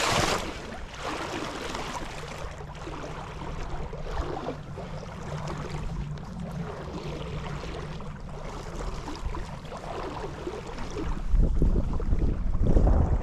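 River water flowing with wind buffeting the microphone; the wind rumble grows much stronger about eleven seconds in.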